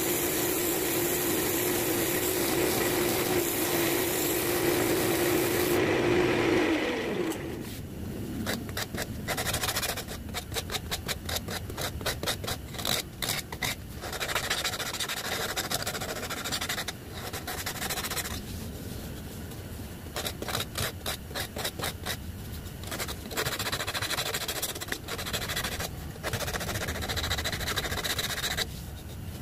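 A wood lathe runs with a sanding pad held against the spinning cherry workpiece; about six seconds in, the lathe winds down and stops. Then sandpaper is rubbed back and forth by hand over the stationary wood in quick, uneven strokes, with brief pauses.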